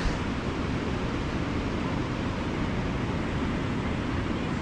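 Steady rushing wind noise buffeting the microphone.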